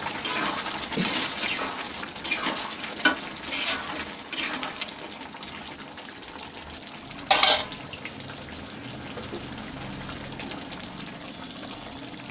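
Spatula stirring and scraping thick chicken curry in a kadai over a gas flame while the curry sizzles; the dish is cooked down to the thick kosha stage and nearly done. Several quick stirring strokes in the first few seconds, one loud stroke against the pan about seven seconds in, then steady sizzling.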